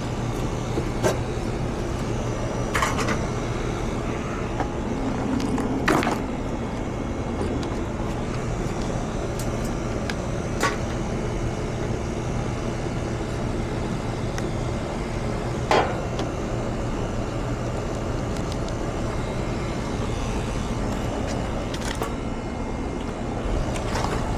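Scattered sharp clicks and knocks of hand tools and screws on a sheet-metal service panel, over a steady low mechanical hum.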